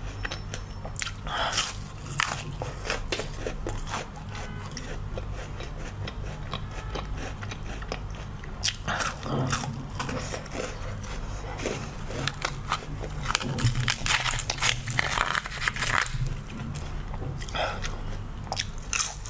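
Crisp crunching bites into frozen, frost-covered leaves and chewing close to the microphone, in irregular clusters of sharp crackles that are densest in the second half, over a steady low hum.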